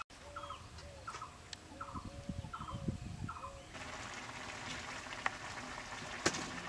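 Domestic fowl calling: a run of about six short repeated calls over a faint steady tone, stopping about three and a half seconds in. Then comes the steady soft hiss of a pan of vegetables simmering on a wood-fired clay stove, with a couple of faint clicks.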